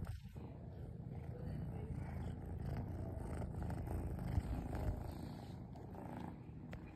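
A kitten purring steadily close to the microphone, a continuous low rumble.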